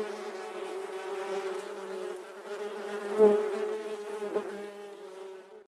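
A honeybee buzzing steadily in flight, swelling louder about three seconds in and again briefly near the end.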